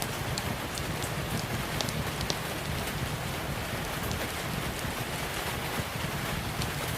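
Steady rain mixed with a crackling wood fire: an even hiss and low rumble throughout, with scattered sharp little pops and snaps.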